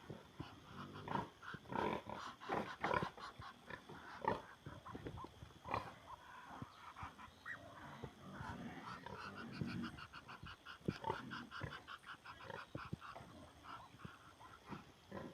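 A pig eating a snack, grunting and chomping in irregular snorts and crunches, with a run of quick, even pulses in the second half.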